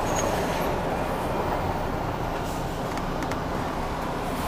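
Steady diesel engine and road noise of a heavy goods lorry, heard from inside its cab as it creeps along in traffic.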